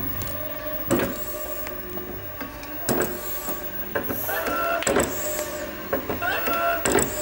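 Homemade electric airgun pump running: an electric motor cranks a hand pump with a steady hum, a knock at each stroke about once a second, and brief hisses of air.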